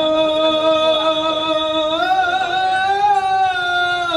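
A voice singing long held notes, the pitch stepping up a little about two seconds in and coming back down near the end.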